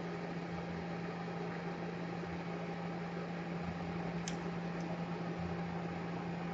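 Steady low electrical hum with a hiss of room noise, and one faint short click about four seconds in.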